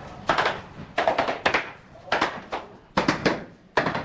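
Hammer knocking bamboo tongue-and-groove floor planks tight into place: a run of about eight sharp wooden knocks at an uneven pace.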